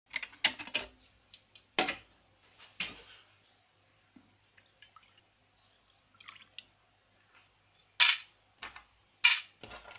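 Hard plastic clacks and knocks of a small ultrasonic cleaner's basket being handled against its steel tank: a cluster of sharp knocks at the start and several more near the end. In between, water is heard faintly as it is poured into the tank.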